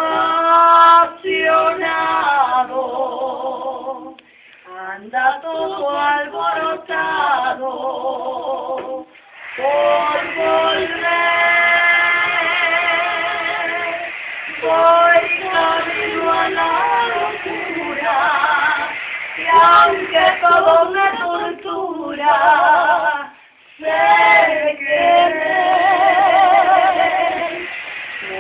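Women singing without accompaniment: long held notes with vibrato, in phrases broken by short pauses.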